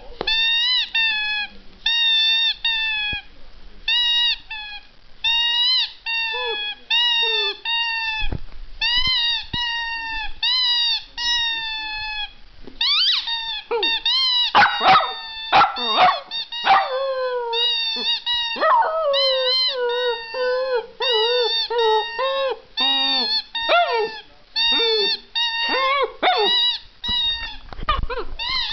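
A dachshund howling in a long run of short, high calls, about one a second. Partway through, the calls turn lower, longer and wavering, and a few sharp knocks sound in between.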